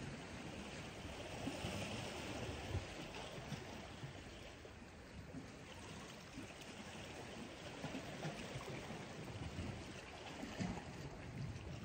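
Small sea waves lapping and trickling against shore rocks, with wind rumbling on the microphone in irregular gusts.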